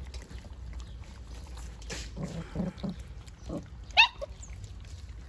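Belgian Malinois puppies grunting and snuffling as they crowd a steel food bowl and eat, with one short high-pitched cry about four seconds in.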